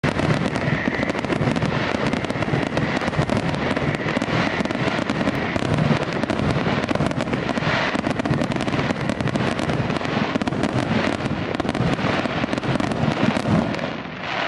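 Fireworks display in a dense barrage: many shells bursting and crackling over one another in quick succession with no gaps, dying down near the end.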